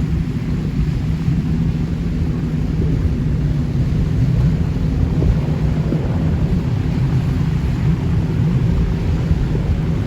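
Jet ski engine running steadily at speed, a low drone mixed with wind and water noise.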